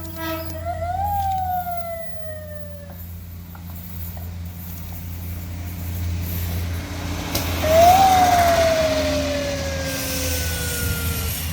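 Siren newly fitted to the KAIS 5 rail inspection car sounding twice over a steady low engine rumble. Each sounding is a quick rise in pitch followed by a slow falling wail. A rushing noise swells between them and is loudest as the second wail starts, about eight seconds in.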